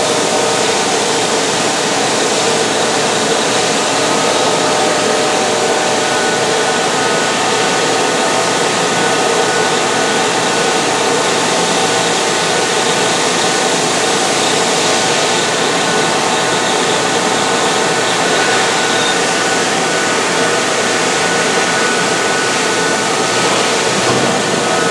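2004 Mazak VTC-250D/50 vertical machining center milling metal with a small end mill. It makes a loud, steady cutting noise with several held tones running through it.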